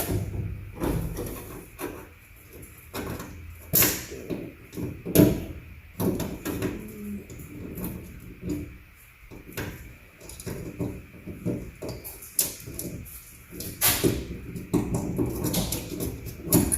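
Irregular clicks, knocks and rattles of metal door hardware being handled while a door handle and its rubber seal are fitted to a pickup truck door, with a few sharper clacks about four, five and fourteen seconds in.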